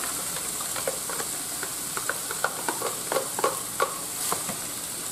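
Ground beef sizzling in a skillet as drained corn and black beans are tipped into it from a plastic container, with a run of light knocks and clatters, busiest between about two and four seconds in.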